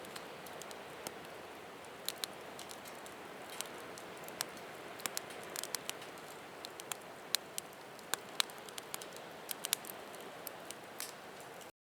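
Wood fire crackling: a steady soft hiss with sharp, irregular pops and ticks, several a second, which cut off abruptly near the end.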